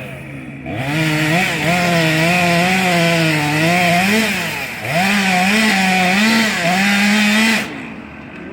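Chainsaw running at high revs and cutting wood, its pitch wavering under load. It eases off briefly about halfway, revs up again, and drops away near the end.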